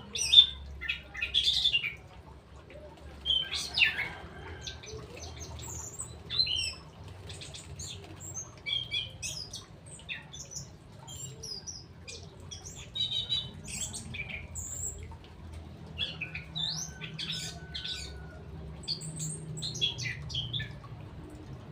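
Songbirds calling: a scatter of short chirps and squawks, loudest in the first few seconds, with a few quick whistled notes.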